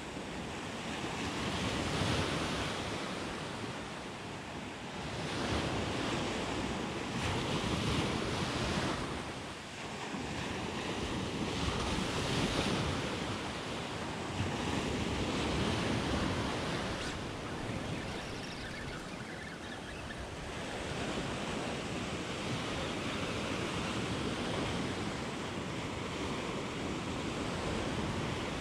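Ocean surf breaking and washing up a sand beach, the noise swelling and easing every few seconds as each wave comes in.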